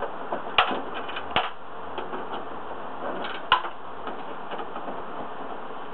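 Light clicks and ticks of a Phillips screwdriver and small screws as the screws of a TV's plastic rear access panel are backed out and handled. Three sharper clicks stand out among the lighter ticks.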